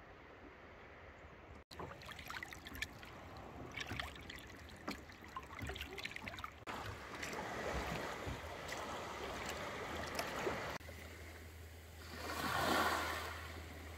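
Small sea waves lapping and splashing in shallow water, then a small wave washing up a sandy beach and draining back, swelling and fading once near the end.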